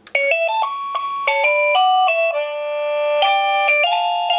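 JSIEEM wireless doorbell chime receiver playing one of its built-in electronic melodies: a quick tune of clean beeping notes stepping up and down in pitch, two notes sounding at once, starting suddenly.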